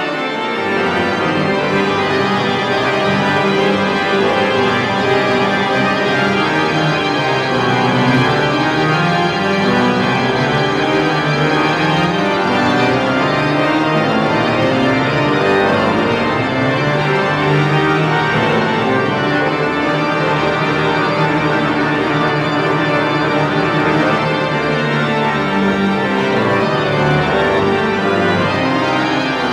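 Church pipe organ playing sustained chords, with the lower notes moving slowly beneath them.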